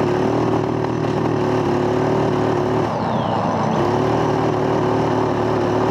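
Off-road go-kart's engine running steadily as the kart drives along, with a brief dip about three seconds in before it picks back up. The owners say its valves are bent.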